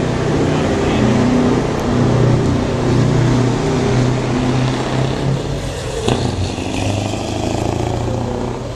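Scania V8 truck engine with open exhaust pipes, running with a deep, steady note as the tractor unit drives past; its pitch drops a little about six seconds in.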